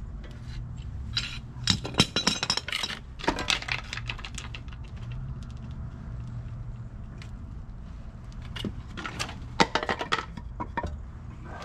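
Metal clattering and knocking as a Ford 8.8 axle housing and hand tools are handled on steel jack stands, in two busy bursts with a pause between them, over a steady low hum.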